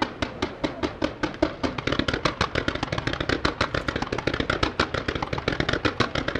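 Ground-level fireworks firing in rapid succession, a steady string of sharp pops, about five a second at first and quickening to about ten a second after two seconds.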